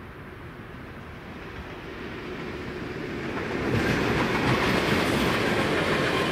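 ČD Cargo freight train approaching, its rumble growing steadily louder, then passing at close range from about four seconds in with a sudden loud rush of wheels on rails.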